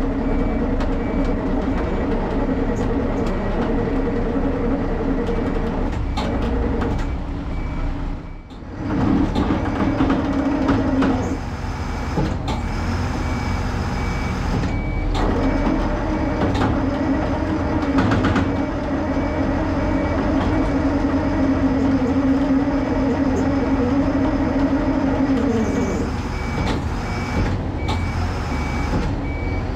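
Truck engines running steadily under load during a winch recovery of a stuck truck, with a brief drop about a third of the way in. A truck's reversing beeper sounds regularly near the end.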